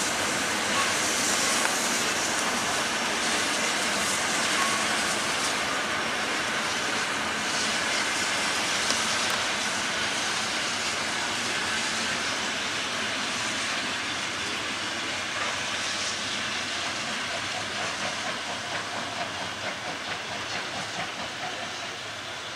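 Steam locomotive pulling its train away, steam hissing over the running noise of the train, the whole sound slowly fading as it moves off.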